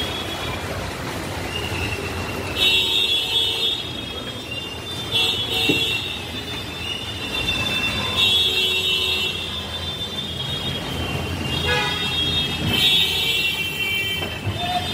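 Road traffic noise with vehicle horns honking again and again, several high-pitched honks of about a second each.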